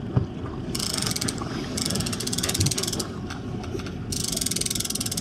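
Fishing reel's drag clicking rapidly as line is pulled off by a hooked white sturgeon making a run. It comes in three bursts, the last starting about four seconds in, over a steady low rumble.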